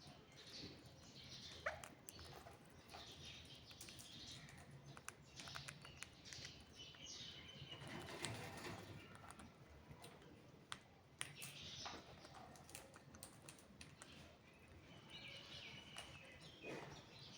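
Faint parrot chirps and short calls with scattered soft clicks throughout.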